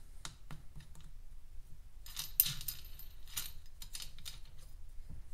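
Small metallic clicks and clinks as a washer and nut are fitted by hand onto the clutch shaft of a Kymco XTown 300 scooter's CVT, against the new clutch bell. The clinking is thickest about two seconds in, with one sharp clink near the middle.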